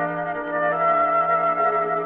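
Orchestral music led by brass, holding sustained chords that shift in pitch a couple of times: a musical bridge leading back into a 1948 radio drama after the commercial, heard on an old broadcast recording.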